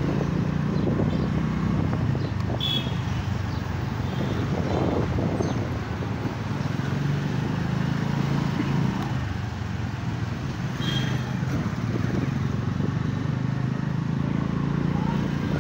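Motorcycle engine running steadily at low riding speed, a continuous low hum with road and wind noise.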